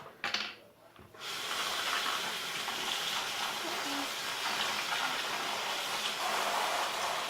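Water running steadily from a tap, starting about a second in.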